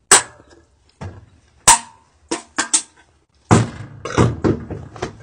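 Empty aluminium beer can handled after being shotgunned: a string of sharp clanks and crackles, closer together and denser toward the end.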